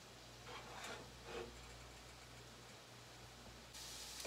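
Quiet, faint sizzle of chopped onions frying in melted butter in a frying pan, with a couple of soft scrapes about a second in; the hiss gets a little brighter near the end.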